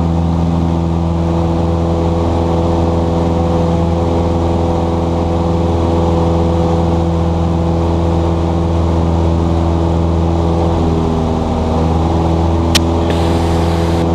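Cessna 172S's four-cylinder Lycoming engine running at climb power, heard in the cabin; about ten seconds in its note briefly sags and shifts, then recovers: a momentary engine slump on climb-out. A single sharp click near the end.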